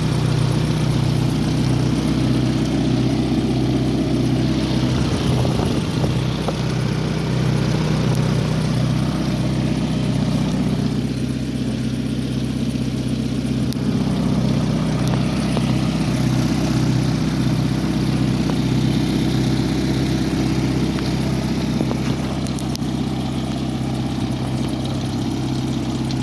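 1982 Volvo 240's engine idling steadily, with an even low pulse.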